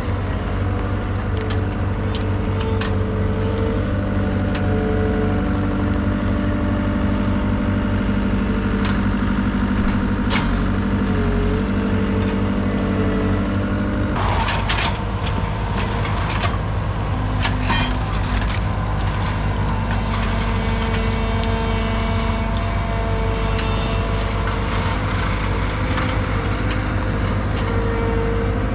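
A heavy vehicle engine running steadily. Its pitch shifts about halfway through, and a few knocks and clatters sound around then.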